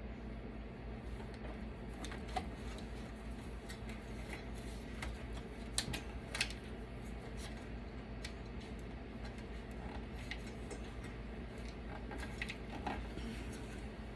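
Scattered small clicks and clinks of metal computer parts being handled and pried apart during dismantling, a few seconds apart, over a steady low hum.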